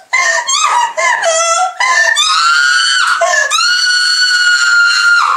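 A woman screaming: short broken cries, then two long high held screams, the last one lasting nearly two seconds before it cuts off.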